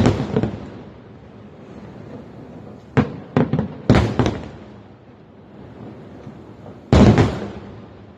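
Aerial fireworks shells bursting in separate bangs: one right at the start, a quick cluster of about four around three to four seconds in, and a louder burst about seven seconds in whose sound trails off over a second.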